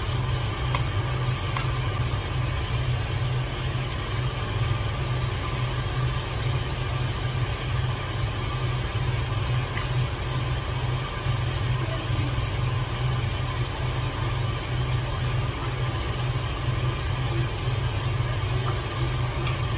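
A steady, loud machine hum, low in pitch, like a small motor running continuously.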